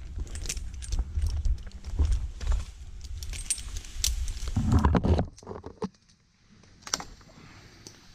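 Metal climbing hardware clinking and jingling as a tree climber moves, with rubbing and bumping noise close to the microphone. The rumble drops away about five seconds in, leaving a few lighter clinks.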